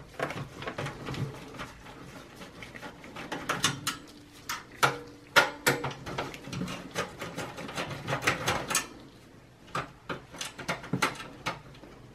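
A screwdriver backing out screws from a steel computer case, with irregular clicks, taps and scrapes of metal on metal.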